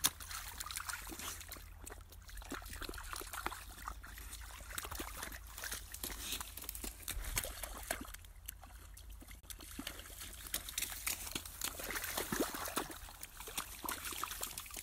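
Irregular splashing and sloshing in a shallow muddy puddle as a toddler's wellies and a working cocker spaniel's paws tramp through the water, over a steady low rumble.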